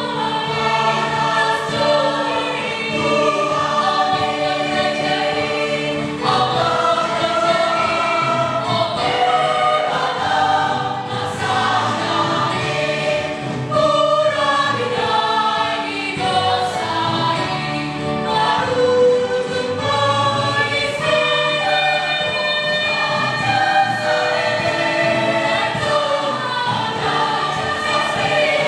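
A large mixed choir of young men and women singing a Christmas church song in several voice parts, in sustained, continuous phrases.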